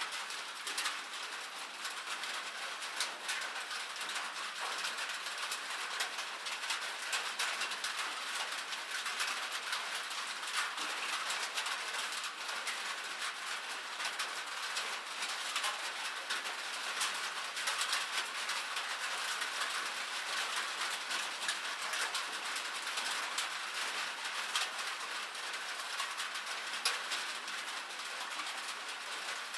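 Light rain falling: a steady hiss with a dense patter of many small drops ticking.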